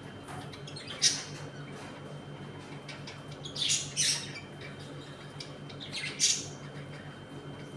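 Pet budgerigars squawking: a sharp call about a second in, two close together around the middle and two more near the end, over faint chatter and a steady low hum.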